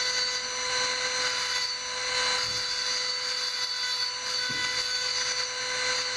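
Small handheld rotary tool running with a steady whine, its thin engraving bit cutting a design into the surface of a black cup.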